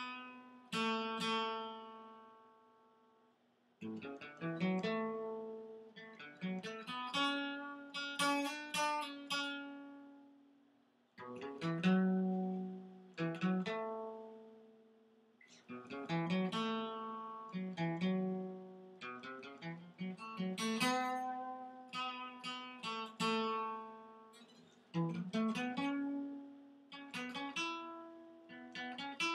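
Acoustic guitar playing an instrumental passage without vocals: chords are struck and left to ring out, fading almost to nothing about three seconds in and again around ten seconds before the playing picks up.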